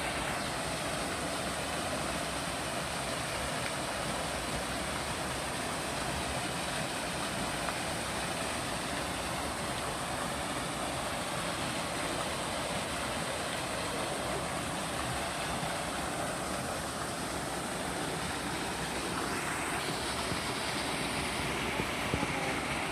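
Flowing water rushing steadily and evenly, with no breaks or surges.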